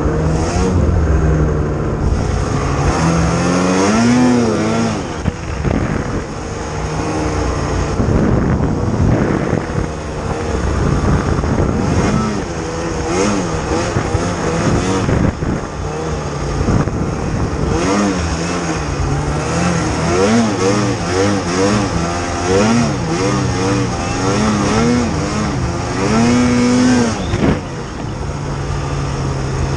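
Snowmobile engine under heavy throttle through deep snow, revving up and falling back over and over. Its note is steadier at the start and near the end.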